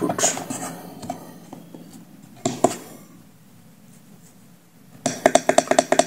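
Hands handling a plastic portable Bluetooth speaker: a USB stick pushed into its port and its buttons pressed, giving scattered clicks and a fast run of small clicks near the end.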